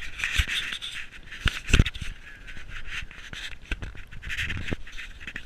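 Footsteps crunching and scraping on snow and ice, in uneven patches, with several sharp knocks and clicks among them.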